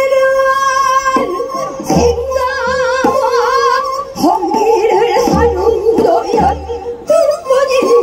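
Female Korean folk singers singing a Namdo minyo in a throaty traditional style, long held notes with a wide, slow vibrato, amplified through the stage speakers. A few low drum beats are heard under the singing.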